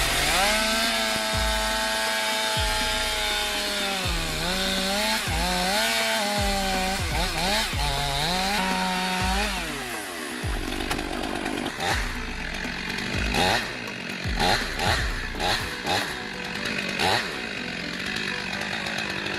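Two-stroke chainsaw running at high revs in a felling cut, its pitch sagging under load and picking up again several times, then dropping away about ten seconds in. A series of sharp cracks and knocks follows in the second half.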